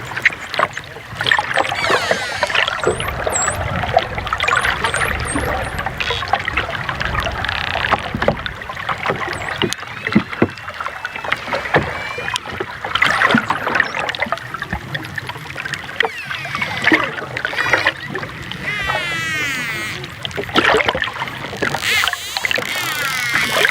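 Dolphins underwater: many whistles gliding up and down in pitch over a steady patter of clicks, with a stretch of rapid buzzing pulses about three-quarters of the way through.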